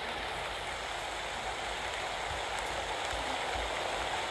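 Steady, heavy rain falling and pattering on surfaces during an autumn rainstorm.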